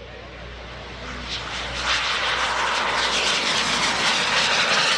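SubSonex mini jet's small TJ-100 turbojet engine taking off and passing low, a rushing hiss that grows steadily louder from about a second in.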